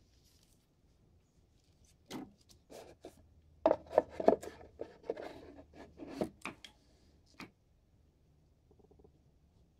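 Handling noise: a black cardboard sunglasses box and its lid being closed and set on a wooden tabletop, with the plastic sunglasses moved beside it. A run of clicks, knocks and rubs over a few seconds, loudest in the middle.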